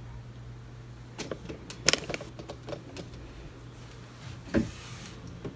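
Clicks and knocks of the tilt-out drawer on an Ikea Micke desk hutch being pushed and swung by hand, the loudest knock about two seconds in and a last one near the end. The drawer is stiff to work, which the owner puts down to it catching on a screw or being screwed in too tight.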